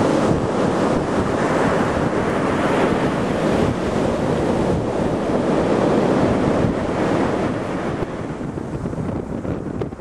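Strong wind buffeting the microphone over the rush of sea surf breaking on a sandy beach. The wind rumble eases a little near the end.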